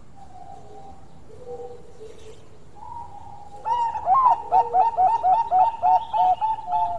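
Zebra dove (perkutut) singing: a few faint, soft coos, then from about halfway a loud, quick run of short rolling coo notes, about three a second.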